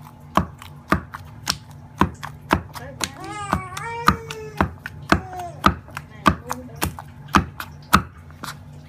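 Wooden pestle pounding fish paste in a stone mortar, steady dull strikes about two a second, the pounding that grinds the fish into a smooth paste for meatballs. A high wavering cry sounds over the pounding about three seconds in.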